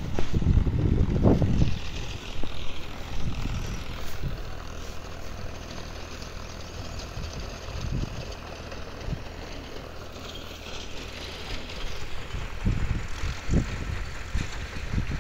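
Wind buffeting the microphone in irregular gusts over a steady low hum, strongest in the first two seconds and again near the end.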